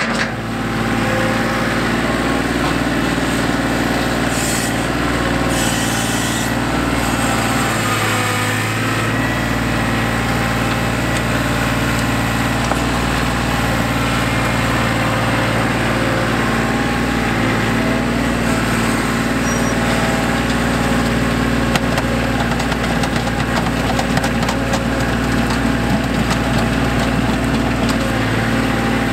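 2016 John Deere 2025R compact tractor's three-cylinder diesel engine running steadily while its front loader lifts and moves a bucket of dirt.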